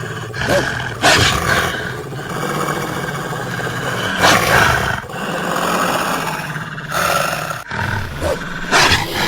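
Sound-effect wolf growling and snarling: a rough, continuous growl broken by sharper snarls about a second in, at about four seconds and again near the end.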